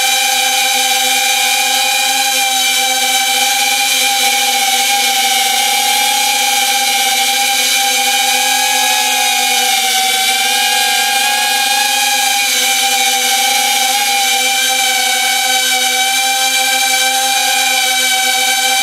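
Small quadcopter's brushless motors and 3.5-inch propellers whining steadily in flight, picked up by an on-board camera mic: a loud hum made of several even pitches over a hiss, the pitch dipping slightly about halfway.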